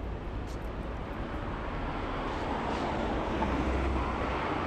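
Street traffic noise: a passing vehicle grows louder from about two seconds in and begins to ease near the end.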